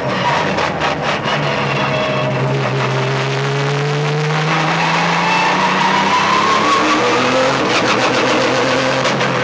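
Porsche 911 GT3 Cup car's flat-six engine heard from inside the cabin under hard driving, its pitch rising steadily through the middle as the car accelerates out of a bend.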